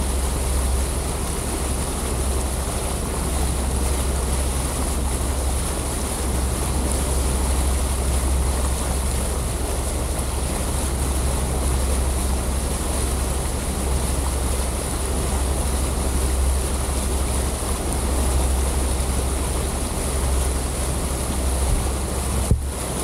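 Steady motor hum with rushing wind and water noise, from a camera flying close alongside a motorboat under way, and a high thin whine over it. A short knock near the end, where the sound briefly drops.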